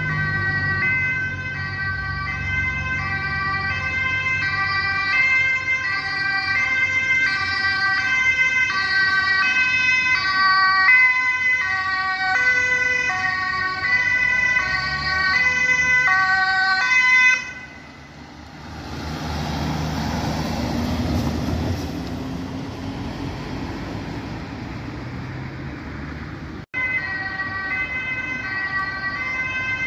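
Ambulance two-tone siren alternating high and low. It stops abruptly partway through and gives way to the running of a passing vehicle's engine and road noise, then returns near the end.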